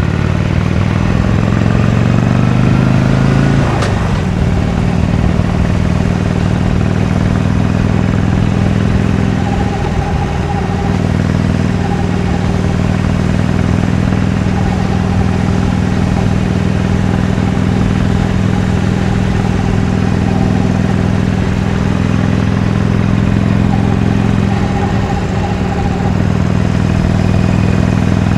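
Harley-Davidson Iron 883's stock-exhaust air-cooled V-twin under way. The engine note rises as the bike accelerates, drops at a gear change about four seconds in, then holds a steady cruising note.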